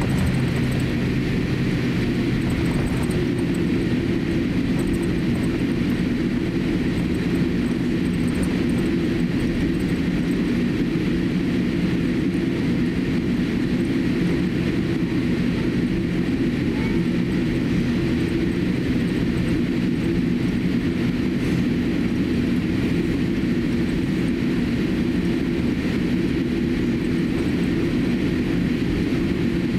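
Steady cabin noise of a Boeing 787-8 taxiing, heard from inside the cabin: the engines' even hum and the rumble of the roll, with no change in level.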